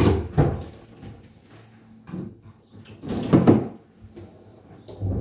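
Knocks and water splashes in a plastic bathtub as a wet, soapy cat is held and scrambles against the tub during its bath. A few separate sounds, the loudest about three seconds in.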